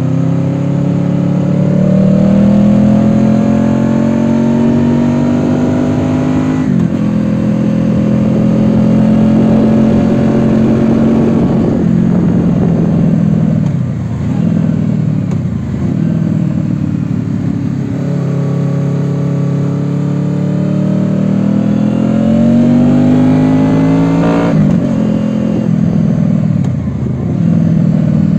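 Honda VFR800X Crossrunner's V4 engine under way: the revs climb and drop sharply at an upshift about a quarter of the way in, hold and then fall away through the middle, and climb again to a second upshift near the end, over a steady rush of wind.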